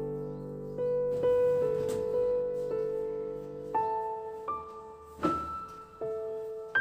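Slow, gentle solo piano background music, single notes starting one after another. A brief knock or clatter is heard about five seconds in.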